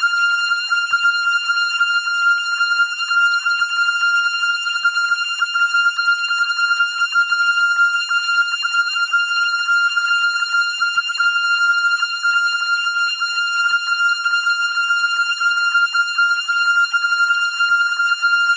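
A continuous high-pitched buzzing tone, one steady pitch rich in overtones, wavering rapidly in loudness without a break: a shaking-motion sound effect.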